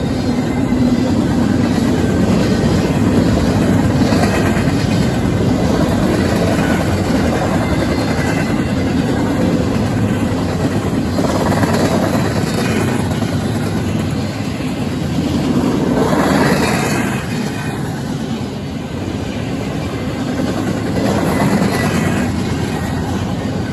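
Intermodal freight train cars rolling past: a steady rumble and clatter of steel wheels on rail, swelling about every five seconds.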